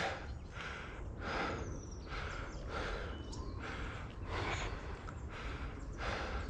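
A mountain biker breathing hard and fast, panting in quick, regular breaths about one every second, out of breath from the ride.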